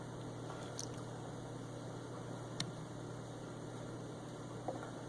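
Steady low electrical hum over faint hiss (room tone), with a few faint ticks.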